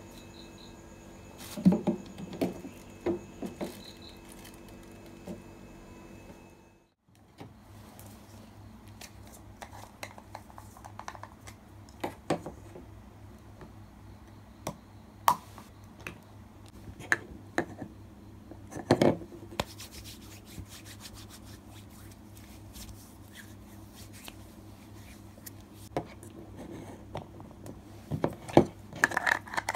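A plastic ice-cube tray knocks and slides as it is pushed into a freezer compartment, over the refrigerator's steady hum. After a short break come scattered small plastic clicks, taps and rubbing as a round two-part plastic case is opened and handled on a desk, over a low steady hum. The clicks bunch together near the end.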